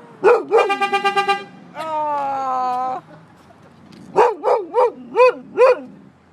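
A dog barks twice, then a car horn sounds steadily for about a second, pressed by the dog itself. About four seconds in, the dog gives five barks in quick succession.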